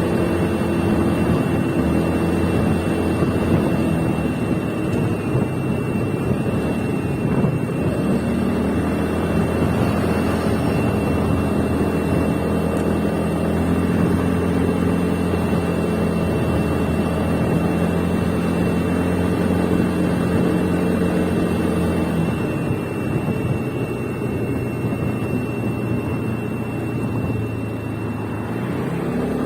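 Suzuki Swish scooter's single-cylinder engine running, its pitch rising about eight seconds in and falling again toward the end, with a thin steady high-pitched tone running through it. The scooter is being checked for an abnormal noise.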